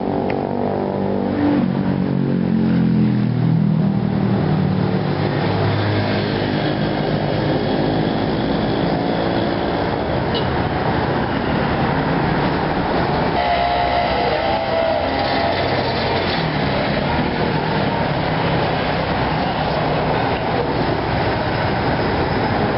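City street traffic: a motor vehicle's engine passes close by in the first few seconds, its pitch shifting, over a steady wash of traffic noise.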